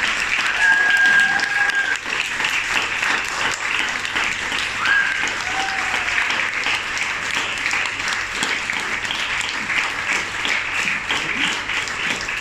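A small audience applauding steadily, with a couple of brief high cheers rising above the clapping, one about half a second in and another around five seconds in.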